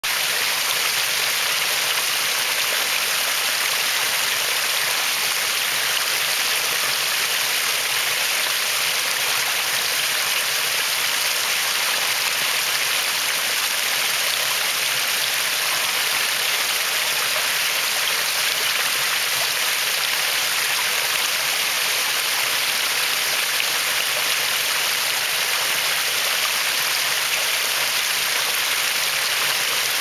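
Small waterfall with thin streams of water falling onto rocks and splashing into a pool, a steady hiss.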